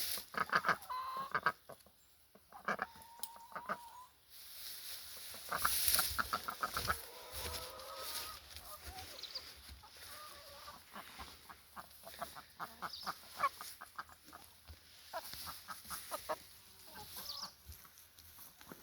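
Backyard hens clucking and calling as they come out of the coop, many short clucks in scattered bursts.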